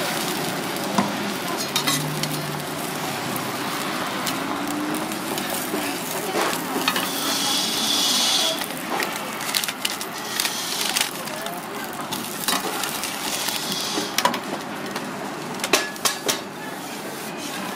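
Steady sizzling of a flatbread wrap cooking on a flat-top griddle, with scattered clicks and scrapes of a metal spatula and tongs on the griddle. The hiss grows louder for a second or so about seven seconds in.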